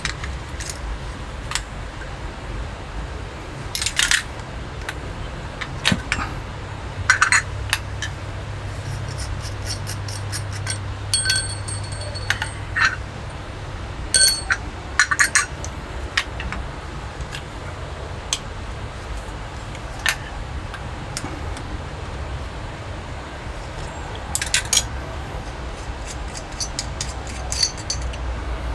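Scattered metallic clicks and clinks, some ringing briefly, as the metal parts of a leaking tap and tools are handled during disassembly, over a low steady hum.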